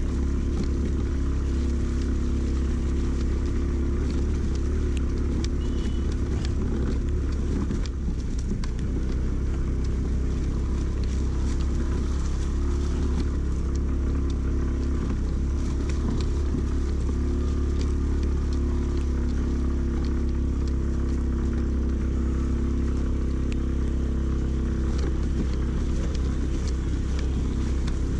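Aprilia Storm scooter's engine running steadily while riding, its hum holding an even pitch, over a strong steady wind rumble on the microphone.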